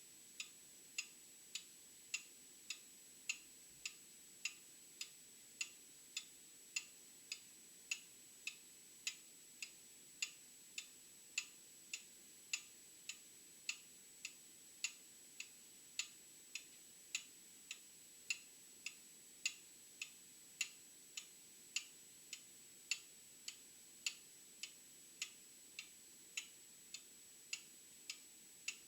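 Old mechanical clock ticking steadily, just under two ticks a second, the beats alternating stronger and weaker in a tick-tock rhythm. A faint steady high whine runs underneath.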